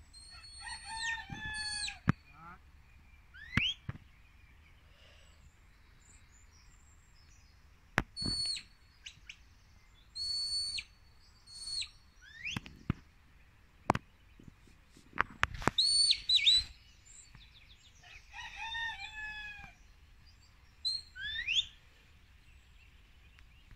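Shepherd's whistle commands directing a working sheepdog: short, high, held notes alternate with quick rising slides, repeated every few seconds. Sharp clicks fall between the whistles.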